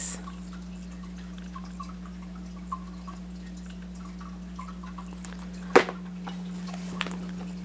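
Packaged curtain panel on a plastic hanger being handled, with small faint ticks, a sharp click about six seconds in and a softer tick about a second later, over a steady low hum.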